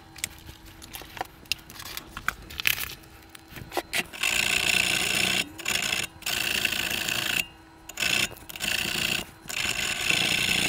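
Corroded metal battery terminals being scraped clean in an old portable record player's battery compartment. A few small handling clicks come first, then from about four seconds in, four long scraping strokes of over a second each.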